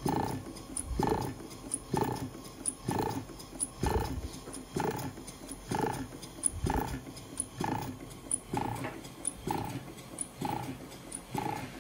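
Scale model 1838 Galloway non-dead-center steam engine running on about 10 pounds of compressed air, its exhaust chuffing in a steady rhythm roughly once a second. Its working air pump is also heard.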